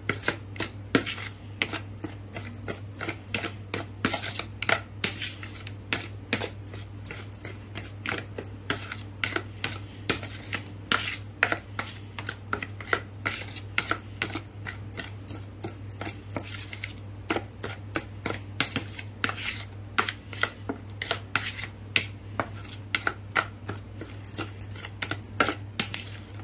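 Steel spoon clicking and scraping against a bowl, several irregular clinks a second, as a thick yogurt and spice marinade is stirred together. A steady low hum runs underneath.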